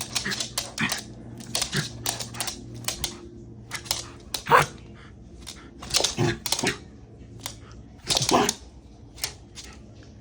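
A Shiba Inu dog in a frenzy, with irregular clattering and scuffling and a few short, louder dog sounds among them.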